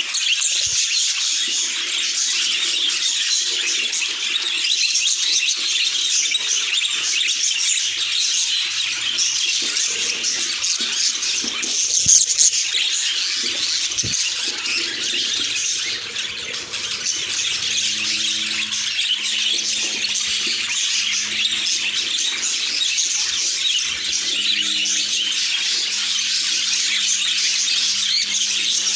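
Budgerigars chattering and warbling, a steady dense twitter of several birds, with one louder chirp about twelve seconds in.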